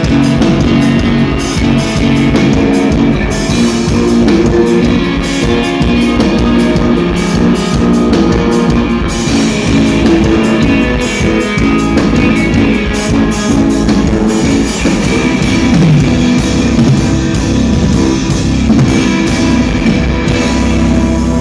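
Live progressive metal band playing loud: distorted electric guitars, bass guitar and a drum kit together.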